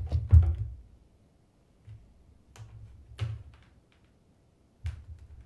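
Handling noise from someone moving at a desk: a couple of heavy low thumps at the start, then a few scattered clicks and taps.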